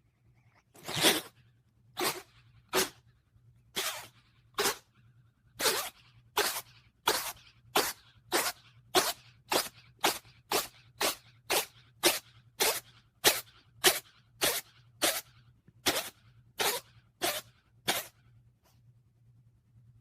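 A cat sneezing over and over: more than twenty short, sharp sneezes that come closer together, from about one a second to two or more a second, then stop shortly before the end, over a faint steady hum.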